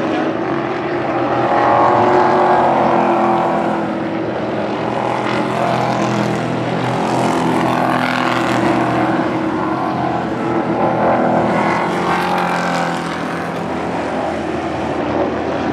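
Pro Truck race truck engines racing past on a paved oval, swelling as trucks pass close and fading as they head down the track, several times over.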